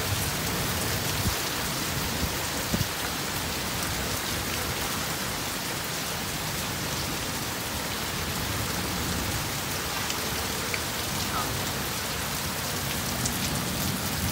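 Heavy rain falling steadily, with water pouring off a roof edge in streams.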